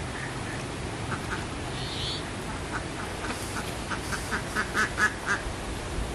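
A duck quacking in a run of short quacks, about four a second, building up from about three seconds in and loudest near the end of the run.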